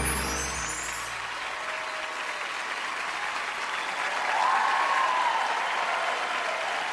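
Studio audience applauding after a performance. The last chord of the closing music and a high shimmering effect fade out in the first second or so.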